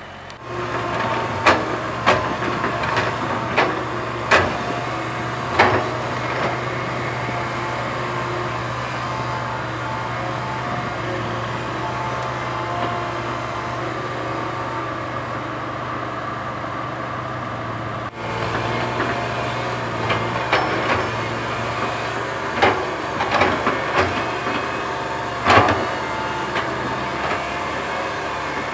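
Komatsu PC130 hydraulic excavator's diesel engine running steadily under working load, with sharp metal clanks and knocks every second or so for the first few seconds and again in a cluster near the end, as the machine levels soil.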